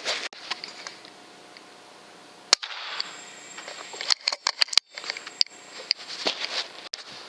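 A single sharp crack of a pre-charged pneumatic air rifle firing about two and a half seconds in, followed by a run of smaller clicks and knocks.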